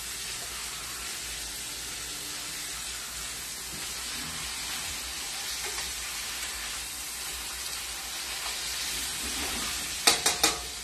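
Steaks frying in a stainless steel pan with white wine, a steady sizzle. Near the end come three or four sharp metallic clicks, tongs knocking against the pan.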